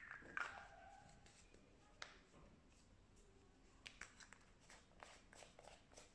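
Near silence: quiet room tone with a few faint, short clicks and taps, one at the start, one about two seconds in and a small cluster near the end.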